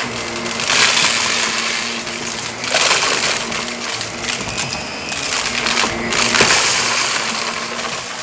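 Shark vacuum running fast over carpet, its motor humming steadily while crunchy debris crackles and rattles up into it. The suction noise swells and fades with each push and pull of the stroke.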